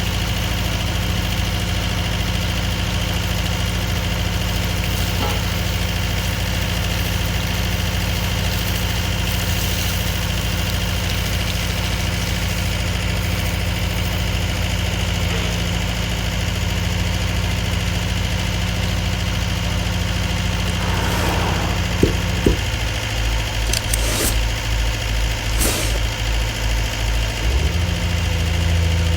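Komatsu PC210 excavator's diesel engine running steadily. About two-thirds of the way through there are two sharp knocks, after which the low engine note starts to pulse, and near the end it settles into a deeper, louder hum.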